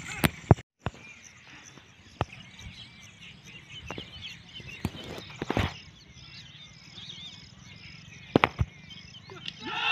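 Quiet open-field ambience with birds chirping, broken by a few sharp clicks, two near the start and a couple more past the middle and near the end.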